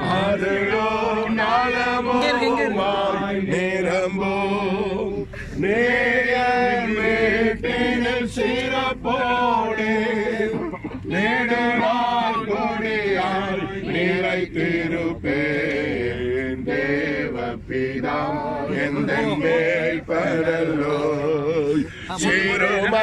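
A group of voices singing a slow, chant-like hymn together, unaccompanied, with long wavering notes.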